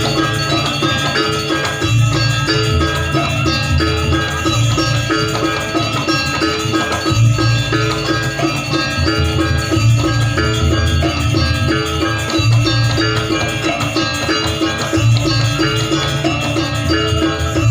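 Janger gamelan music: metallophones playing a fast repeating pattern over drums and a pulsing low bass.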